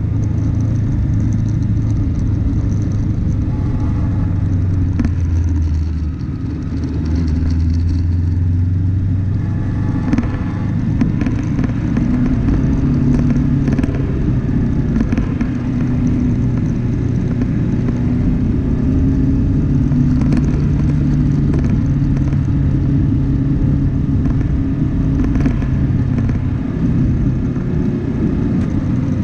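Off-road vehicle driving on a dirt track: a steady low engine rumble that shifts in pitch now and then as it changes speed, with scattered knocks and rattles over the bumps.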